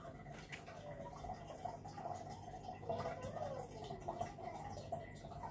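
Aquarium water bubbling and trickling from the tank's aeration, with faint clicks.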